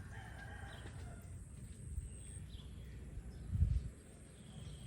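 Outdoor ambience: a few faint short bird chirps over a steady low rumble, with a dull low thump about three and a half seconds in.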